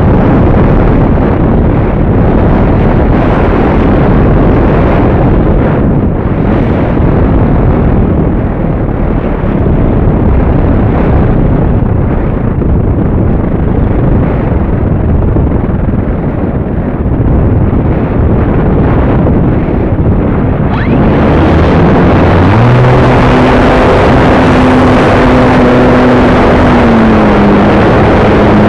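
Loud wind buffeting on the microphone of a camera riding on an RC Acromaster model plane in flight. About 21 seconds in, the plane's electric motor and propeller come in as a steady tone over the wind, dropping a little in pitch near the end.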